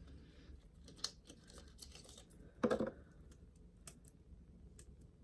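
A mechanical pencil and its small packaging being handled and unwrapped: scattered light clicks and crackles, with one louder knock a little past halfway.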